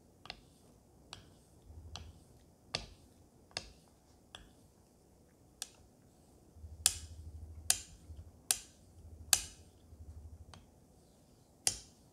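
Kamisori straight razor being honed in strokes on a wet Shapton 5000-grit water stone: a sharp click about once a second as the steel blade meets the stone at each stroke, with a faint scrape of the blade on the wet stone between clicks.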